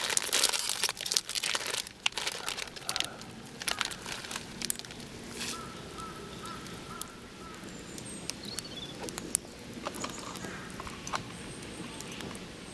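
Crinkling and crackling as something is handled during food preparation, with many small clicks, busiest in the first two seconds and again near the end. A few faint high chirps sound in the background.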